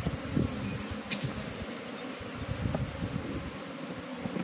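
A colony of honeybees buzzing steadily around an opened hive box, the many wingbeats blending into one even hum.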